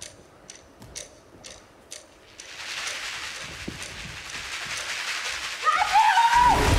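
A few light knocks and taps of bare feet on a wooden stage floor, then a steady hiss that swells from about two and a half seconds in. Near the end a voice shouts "Curfew!" and music with a deep bass comes in loudly.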